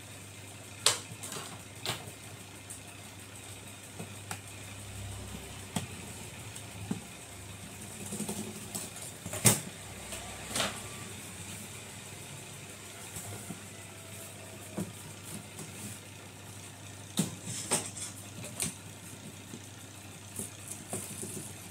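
Small screws being driven back into a laptop's plastic bottom case with a hand screwdriver: scattered clicks and taps of the screwdriver tip and screws against the case, the sharpest about a second in and near the middle. A steady low hum runs underneath.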